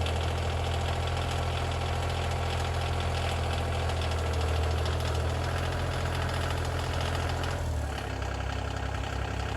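Compact tractor's diesel engine running steadily, its pitch and level dropping slightly about eight seconds in.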